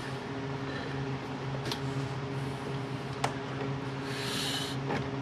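Steady low hum of a quiet shop, with two faint clicks and a short rustle near the end, as hands work at wiring and a lock washer in an engine bay.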